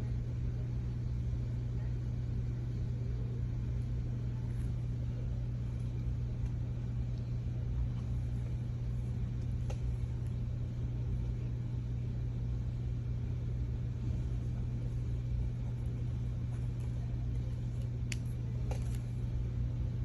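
A steady low hum with a faint noise bed, unchanged throughout, with a couple of faint clicks, one about halfway through and one near the end.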